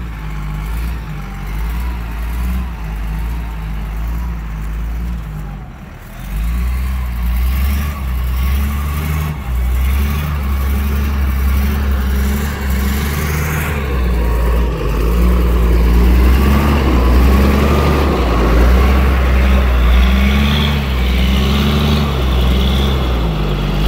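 Medium-duty tow truck's engine running under load as it pulls a fifth-wheel trailer, its pitch wavering as the throttle changes. It gets louder in the second half as the truck comes up close.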